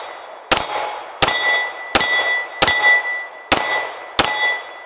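Six shots from a Springfield Armory XD-M Elite 4.5-inch 9mm pistol, fired at an even pace about two-thirds of a second apart. Each shot is followed by the ring of a hit steel plate target.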